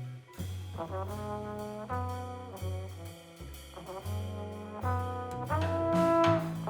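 Jazz quartet playing: trombone carries the melody in a phrase of short notes, ending on a loud held note, over walking bass, guitar and drums with cymbals.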